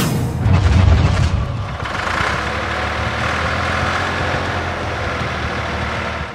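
Engine sound effect for a cartoon tractor driving away: a heavy low rumble, loudest in the first second or so, then running steadily.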